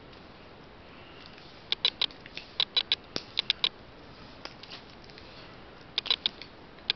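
Clusters of sharp plastic clicks and crackles as a hard plastic battery blister pack is pried and cut open with a pocket knife, with a few quiet gaps in between.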